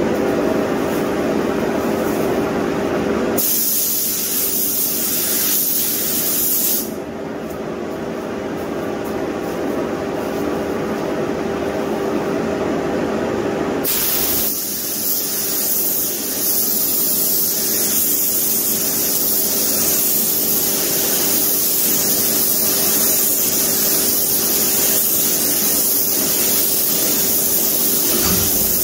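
DeVilbiss DV1-B spray gun (1.2 mm tip, 18 psi) hissing as it sprays paint onto a small plastic part, over a steady hum from the downdraft paint booth. The spray hiss stops for several seconds about a quarter of the way in, then resumes.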